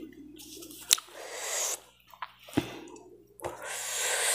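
A person sniffling and breathing hard from the burn of very spicy chilli food: two hissing breaths, with a sharp click about a second in and a few soft knocks.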